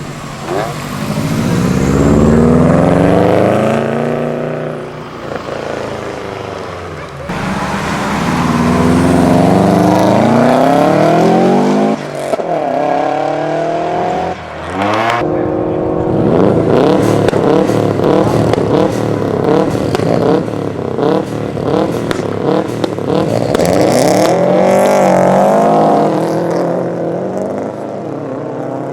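Subaru Impreza flat-four boxer engines with their uneven rumble, revving and pulling away hard, in several short clips spliced together. The pitch climbs under acceleration in each clip.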